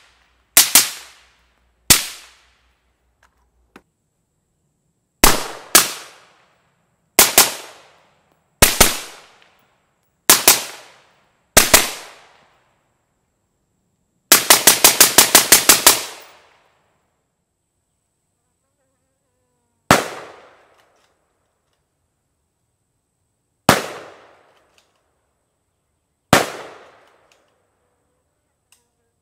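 Suppressed gunshots from an AR-15 firing 55-grain M193 ball through a 3D-printed titanium PWS BDE 7.62 suppressor: single shots and quick pairs a second or more apart, then a rapid string of about ten shots in under two seconds. Three more rifle shots follow, spaced several seconds apart. A faint steady high insect buzz runs under the later shots.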